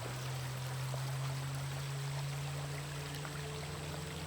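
Creek water running steadily, an even rushing with a steady low hum underneath.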